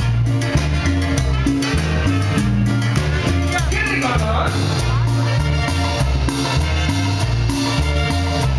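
Cumbia band playing live, with a bass line stepping from note to note under drums and percussion.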